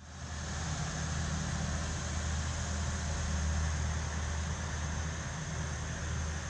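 A steady low mechanical hum, like a motor or engine running without change.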